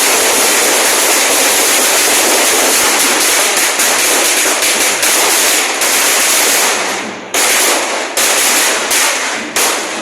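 A long string of firecrackers going off in a dense, continuous crackle, breaking up into separate bursts with short gaps in the last few seconds.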